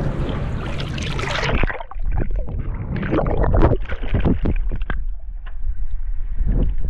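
Wind noise on an open-air microphone, then a little under two seconds in the sound turns muffled as the microphone goes underwater: sea water bubbling and sloshing in irregular splashes over a low rumble, as a released kingfish swims off through the bubbles.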